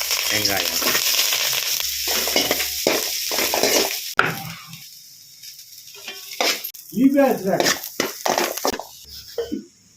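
Onions dropped into hot oil in a kadai, sizzling strongly for about four seconds and then dying down, with stirring and the clinks of a spoon against the pan.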